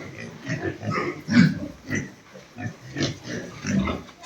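Pigs grunting in a run of short, rough grunts, about two a second.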